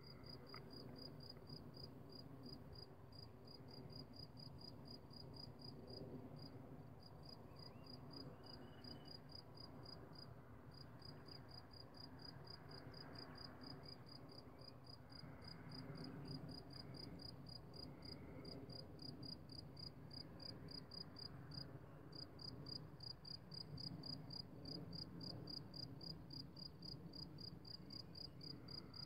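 Faint, steady chirping of a cricket, a high pulse about four times a second with a couple of brief pauses, over a low background rumble.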